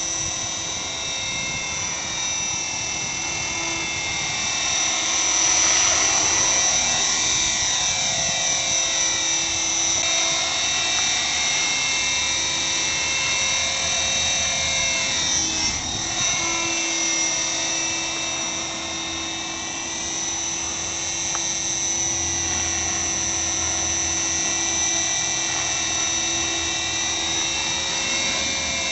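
Align T-Rex 450 SE electric model helicopter flying: a steady high whine from its motor and rotor head. The tone sweeps and shifts as it moves around, most noticeably about six and sixteen seconds in.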